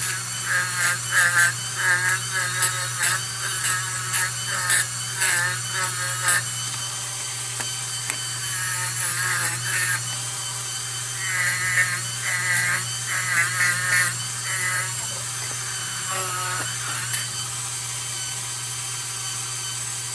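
Quick, repeated scrubbing strokes on the lantern's metal, in two runs with a short pause between and a quieter stretch near the end, over a steady low hum.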